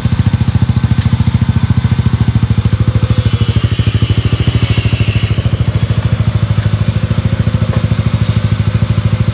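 Yamaha YB125Z motorcycle's single-cylinder four-stroke engine idling steadily, with an even beat of about a dozen pulses a second. From about three seconds in, a hiss sounds over it for a couple of seconds.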